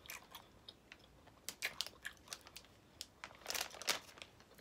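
Faint crinkling of a plastic candy bag handled in the hands, mixed with crunchy chewing of the candy, in scattered crackles that come in two louder clusters.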